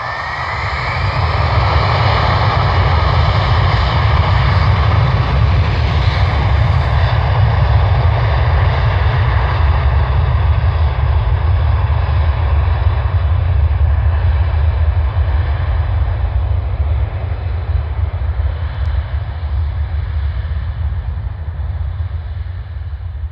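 Twin rear-mounted turbofans of a Bombardier CRJ-900 airliner at takeoff thrust during its take-off. The sound swells over the first couple of seconds with a rising whine, holds as a loud, deep rumble and roar, then slowly fades in the last several seconds as the jet moves away.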